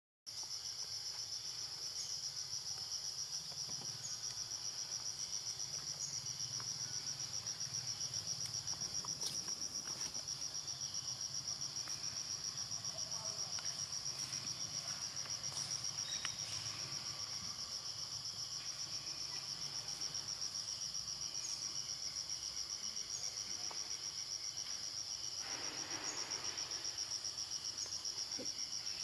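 Insects trilling in the forest: a steady, high-pitched, fast-pulsing drone that carries on without a break.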